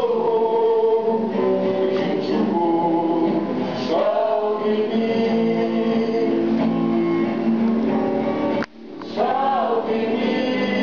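Song with singing over strummed acoustic guitar, with a brief break about nine seconds in.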